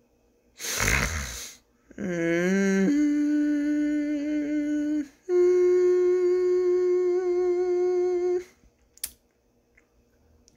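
A man hums with his mouth closed and a blocked nose, holding two long, steady notes, the second slightly higher and about three seconds long. Just before the humming comes a loud breath.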